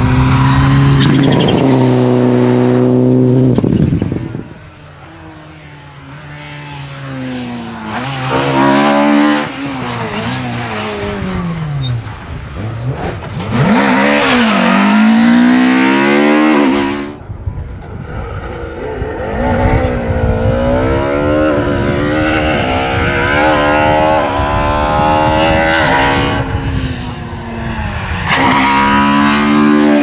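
Rally cars driven hard on a tarmac stage. First a Mitsubishi Lancer Evolution's engine at full throttle, then a Suzuki Swift rally car's engine, its revs climbing and dropping again and again through gear changes. The engine sound breaks off abruptly twice.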